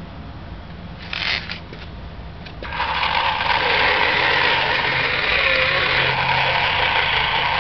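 Toy radio-controlled wheeled excavator's small electric motors and gearboxes whirring steadily as the boom and bucket move. It starts loud about two and a half seconds in, after a quieter stretch with a few clicks and a brief burst.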